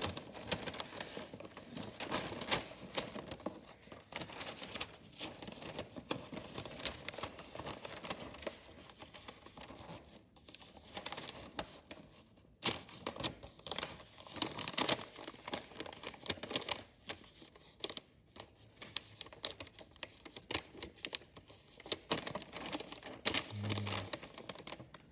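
Christmas wrapping paper crinkling and rustling as hands fold it around a cardboard box, in irregular crackles and crisp snaps.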